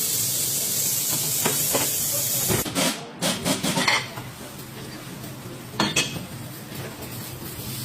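A steady, loud hiss of escaping air or spray that cuts off about two and a half seconds in, followed by a quick cluster of knocks and clatter and a single sharp click near the end.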